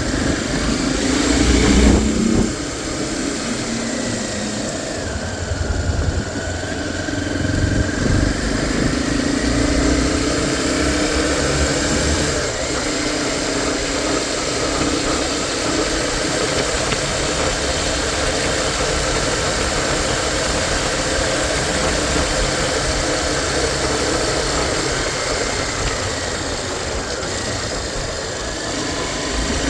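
Honda XR250 Tornado's single-cylinder engine running at a steady idle, briefly louder about two seconds in and again near eight seconds.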